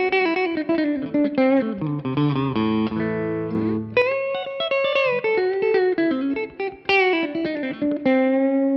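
B&G Little Sister Private Build electric guitar through a Suhr Badger 35 amp on a clean tone with added reverb, playing a lead phrase of single notes with string bends and a slide up about four seconds in. Near the end it settles on a chord that rings on.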